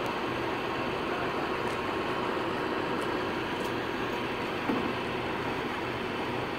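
Propane-fuelled Toyota forklift's engine running steadily while the truck manoeuvres, with one short thump about two-thirds of the way through.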